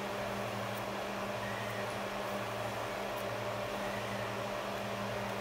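A steady low hum over an even hiss, like a small motor or fan running, with a few faint light ticks from small parts being handled.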